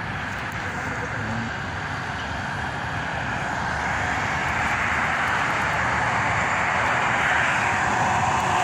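Road traffic on a multi-lane road below, a steady rush of tyre and engine noise that grows louder over the first few seconds.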